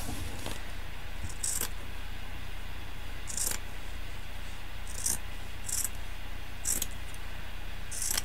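Scissors snipping through frayed hessian (jute) fringe: about six short, crisp snips, irregularly spaced a second or so apart.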